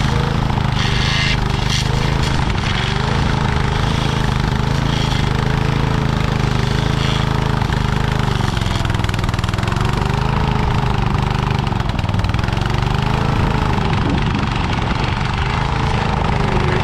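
Little Wonder bed shaper's small gas engine running steadily at full throttle, its throttle cable broken and screwed in wide open, while its blade cuts a new bed edge; a fainter tone rises and falls every couple of seconds as the load changes.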